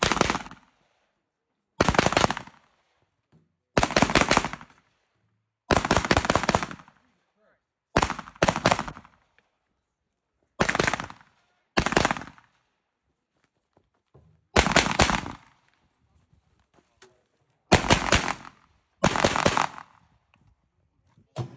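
Rifle fire during a competition stage: about ten quick strings of several rapid shots each, a second or two apart.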